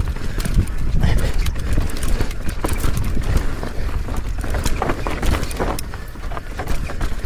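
Mountain bike descending a rough, rocky trail at speed: irregular clicks and knocks from the tyres hitting rock and the bike rattling, over a steady low wind rumble on the camera's microphone.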